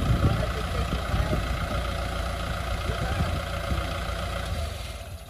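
Kubota M6040 tractor's diesel engine running steadily while the tractor sits stuck in soft ploughed soil, fading away near the end.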